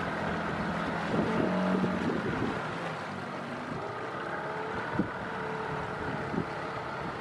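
Small outboard motor running steadily, pushing a dinghy through choppy water, with water slapping at the hull now and then and wind on the microphone.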